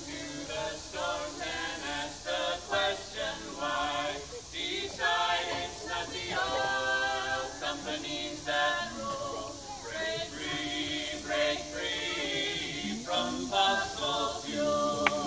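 A group of voices singing together a cappella, in short sung phrases.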